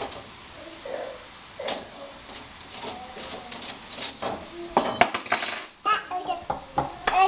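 Metal cutlery clinking as it is pulled out of a dishwasher's plastic cutlery basket: a string of sharp clinks, some with a brief metallic ring, thickest about two-thirds of the way through.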